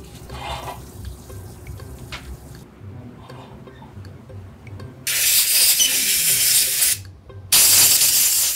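Compressed-air blow gun blowing out a washed silicone rubber mould to clear the water from it: two loud hisses, one of about two seconds and then after a short break one of about a second. Before them, a sink tap runs faintly while the mould is scrubbed with a brush.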